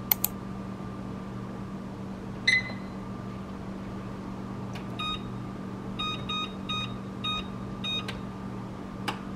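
Microwave oven running with a steady hum. It gives a single beep about two and a half seconds in and a run of six beeps between five and eight seconds in, with sharp clicks near the start and near the end.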